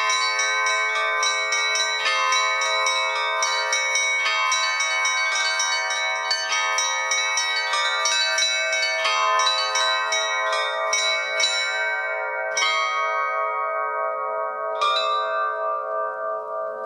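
Russian Orthodox bell ringing (zvon): several bells of different pitch struck in a fast, dense pattern. It thins near the end to two last single strikes, and the bells are left ringing out.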